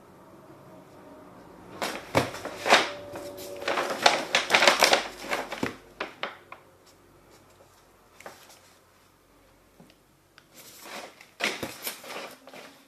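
Packaging being handled and opened by hand: rustling and crinkling with sharp clicks and knocks, in a busy cluster about two seconds in and again near the end.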